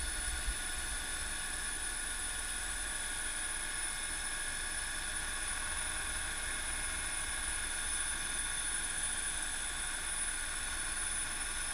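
Helicopter in flight heard from on board: a steady rotor and turbine drone with a constant high whine above it.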